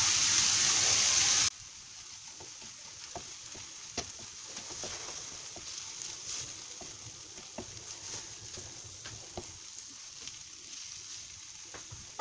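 Onion, carrot and squash frying in a pan: a loud sizzle for about the first second and a half, then a sudden drop to a low sizzle. A wooden spatula stirs the mixture, with occasional small clicks and scrapes against the pan.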